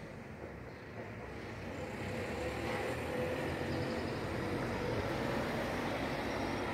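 Low engine rumble with a faint whine, growing louder about two seconds in and then holding steady.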